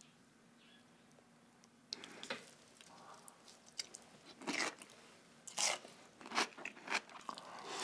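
Crunchy chewing of raw cucumber dressed in sauce: after a quiet start, crisp crunches begin about two seconds in and come irregularly, about once a second.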